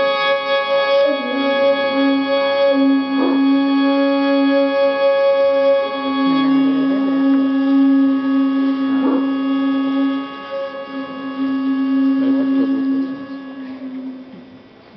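Slow instrumental music: a steady, organ-like sustained chord with a melody of long held notes over it, dying away over the last couple of seconds as the piece ends.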